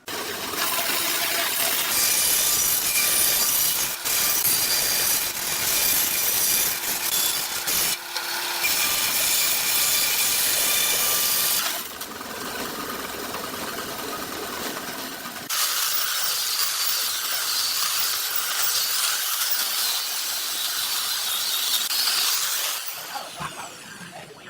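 Power tools cutting and shaping hardwood: loud, steady cutting noise in several separate stretches, changing character abruptly three times and fading out near the end.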